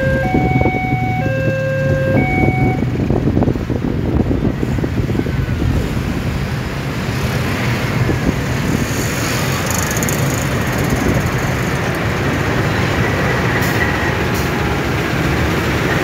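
KAI CC206 diesel-electric locomotive running slowly past at close range: a steady engine drone mixed with the noise of the locomotive rolling on the rails. A repeating two-note beeping sounds during the first few seconds.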